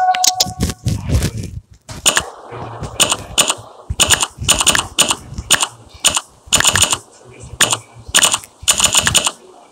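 Key-press clicks from a phone's on-screen keyboard as a message is typed: short, sharp taps at an uneven pace, about two or three a second.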